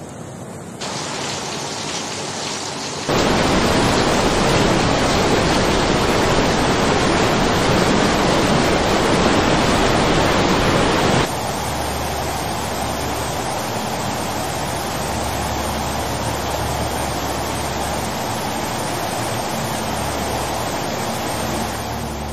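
Fast, muddy floodwater rushing and churning as a steady, loud rush of noise. It jumps louder about three seconds in and drops back about eleven seconds in.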